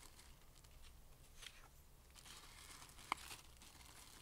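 Thin plastic sandwich bag crinkling faintly as it is opened and handled, with one sharp click about three seconds in.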